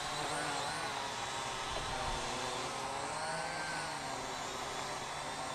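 Syma X8W quadcopter's electric motors and propellers whirring overhead in flight, a steady buzz whose pitch wavers up and down as the throttle changes.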